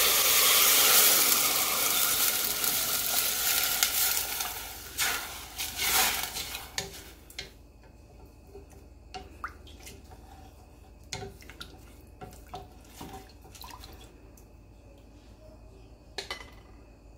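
Water poured into a hot stainless steel saucepan of stir-fried rice and garlic, sizzling with a loud hiss that fades over the first several seconds. Then a wooden spatula stirs the watery rice, with scattered light knocks against the pot.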